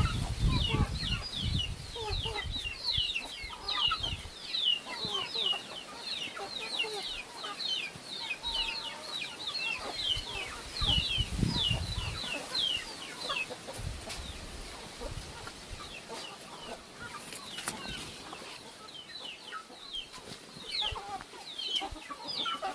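Chickens calling: a dense run of short, high, falling peeps, many overlapping, that thins out after about 13 seconds and picks up again near the end. A low rumble sounds under the first few seconds and again around 11 seconds.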